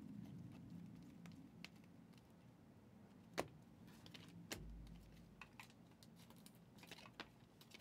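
Faint, scattered clicks and ticks of glossy trading cards being flipped one by one off a hand-held stack, with a couple of sharper clicks midway.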